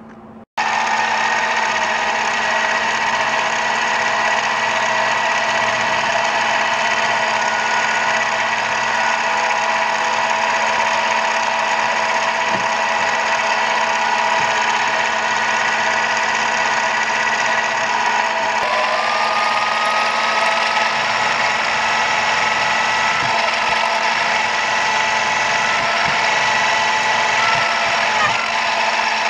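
Benchtop mill's spindle running steadily while a twist drill bores a hole through an aluminium rear-sight part, with a steady motor whine. It starts abruptly about half a second in, and the whine shifts slightly in pitch about two-thirds of the way through.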